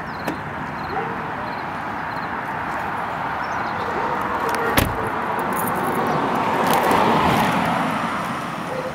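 A car passing on the road, its tyre and engine noise swelling to a peak about seven seconds in and then fading, with one sharp knock about five seconds in.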